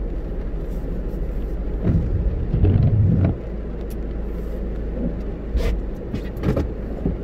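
Car running, heard from inside the cabin as a steady low rumble, with a few short knocks and rattles.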